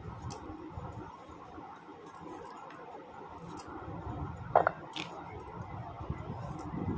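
Vegetables being sliced on a boti, a curved blade fixed upright on a wooden base: soft, uneven cutting and scraping strokes against the blade. There is one sharper click about four and a half seconds in.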